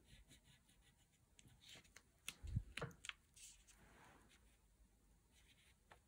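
Faint scratching of an oil pastel stroking across paper, in short repeated strokes, with a soft knock and a few clicks about two and a half seconds in.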